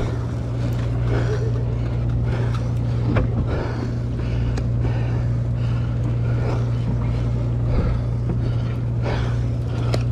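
Sportfishing boat's engine running with a steady low drone, under faint background voices.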